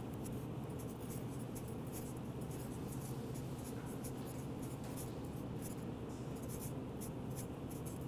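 Pens scratching on paper cards as two people write, a quick, irregular run of short strokes over a steady low hum.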